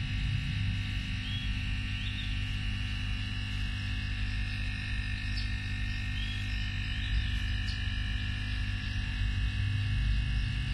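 A steady electrical hum with a low drone and a thin high whine, and a few faint short chirps high up.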